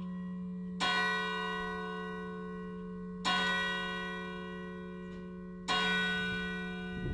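Church bells ringing in a full peal: a strong bell stroke about every two and a half seconds, three strokes in all, each leaving a long ringing decay over a steady low hum.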